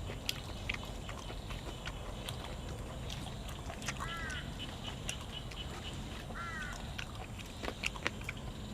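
Close-up eating sounds: scattered wet clicks and crunches of chewing cuttlefish and fresh vegetables over a steady low background noise. Twice, about halfway through and again a couple of seconds later, a short bird call sounds in the background.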